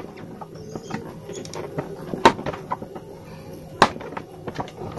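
A knife cutting a fairly hard hot-glue stick into small pieces on a tabletop: a scatter of small clicks and scrapes, with two sharp snaps about two and four seconds in as pieces break off.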